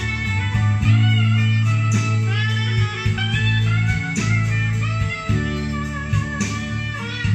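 Recorded guitar music played back through a McIntosh MA 5100 amplifier and its speakers. Guitar notes slide up and down in pitch over a steady bass line.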